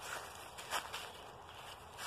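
Footsteps crunching and rustling through dry pine needles and leaf litter, a few soft steps.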